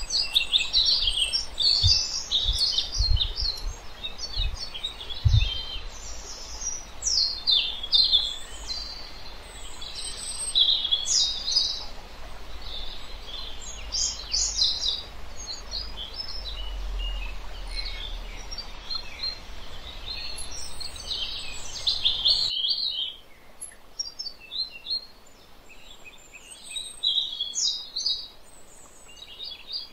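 Several small birds chirping and singing in quick, overlapping phrases. A low rumble with a few thumps sits underneath at first, and the background hiss and rumble cut out abruptly about three-quarters of the way through while the birdsong carries on.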